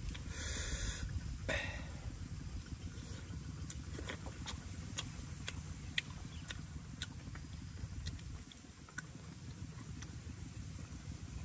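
Wind rumbling on the microphone, with faint sharp clicks about twice a second and a short rustle near the start, from charred skin being picked off a roasted whole fish with the fingers and the flesh eaten.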